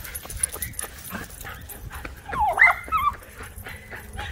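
Small dog whining: one high, squeaky whine about two and a half seconds in, rising and wavering in pitch for just under a second.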